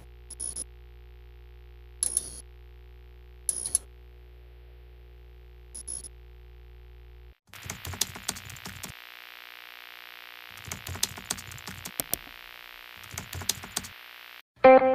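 Edited intro sound design. A steady low hum is broken by a few sharp, isolated clicks; about halfway through it changes to a hiss with many irregular crackling clicks, like an old film reel. It breaks off just as guitar music starts at the end.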